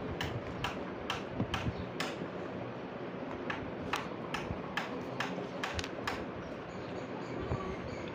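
Hammer driving wire nails into wooden stair formwork: a run of sharp taps, about two to three a second, that thin out after about six seconds.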